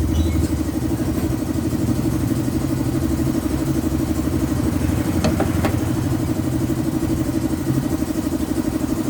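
Motorcycle engine idling steadily, with a fast even pulse, after its carburetor has been cleaned. Two short clicks a little past five seconds in.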